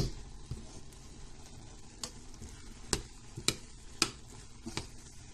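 A metal spoon stirring cooked rice in a pot on the stove, over a faint steady hiss, with about five sharp clicks as the spoon knocks against the pot in the second half.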